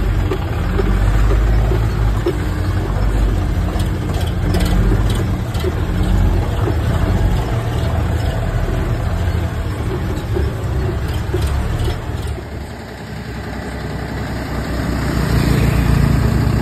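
Diesel engine of a new Tata 4830 16-wheeler truck running at low speed, with a few light clicks; it eases off about twelve seconds in and builds again near the end.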